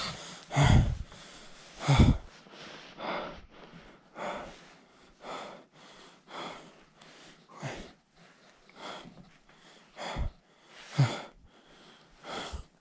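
A person's fast, heavy breathing close to the microphone, about one breath a second, with louder, sharper breaths near the start and again near the end.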